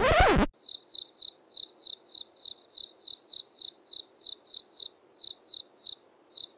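Cricket chirping: short, high, very regular chirps about three or four a second. They follow a loud falling sweep that cuts off half a second in.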